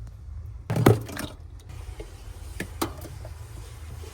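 Scattered knocks and clicks of hands working with parts, the loudest a sharp thump about a second in, over a steady low hum.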